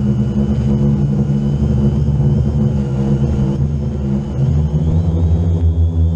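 Quadcopter's electric motors and propellers running steadily in flight, heard from a camera mounted on the drone, with a thin high whine that rises slightly about five seconds in.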